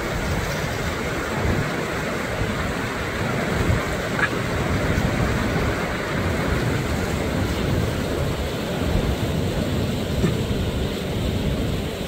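Steady rushing noise of a tall waterfall, with a gusty low rumble of wind buffeting the microphone. A brief faint rising chirp about four seconds in.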